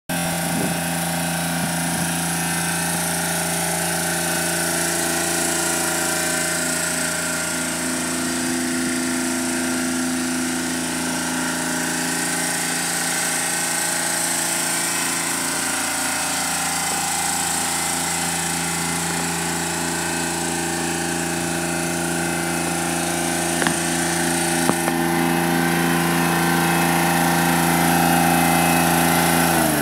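Exmark Lazer Z zero-turn mower's 27 hp liquid-cooled three-cylinder diesel engine running steadily at an even speed. Two light clicks come about three-quarters of the way through.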